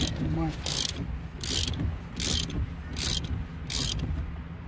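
Ratchet wrench clicking in repeated short strokes, about one every three-quarters of a second, as a bolt is tightened down.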